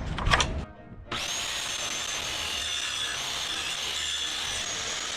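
Circular saw running and cutting through pallet wood, coming in abruptly about a second in and holding a steady high whine.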